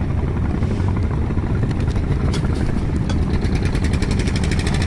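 Small boat engine running steadily with a low drone. A fast, even ticking sets in over the last second or so.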